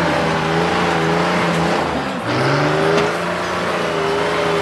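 Trial truck's diesel engine working hard under full load on a steep hill climb, held at high revs. About two seconds in, the revs dip briefly and then climb back up.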